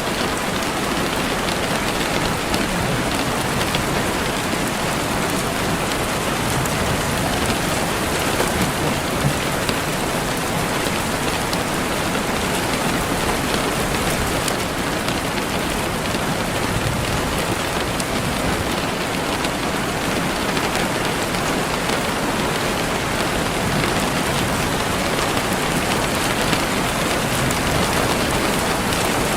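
Steady rain falling, a dense even hiss with many small drop ticks on surfaces.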